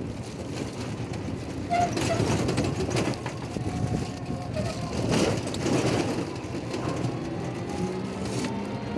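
Ride-along sound from on board a rickshaw moving along a paved street: steady vehicle and road noise with irregular knocks.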